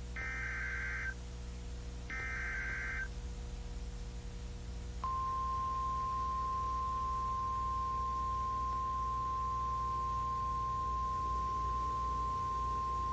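Emergency alert transmission: the last two of the three SAME digital header bursts, each a harsh data screech about a second long with a second's gap between them. About five seconds in comes a single steady warning alarm tone of about 1050 Hz, held for about nine seconds, the tone that announces a weather warning, here a severe thunderstorm warning.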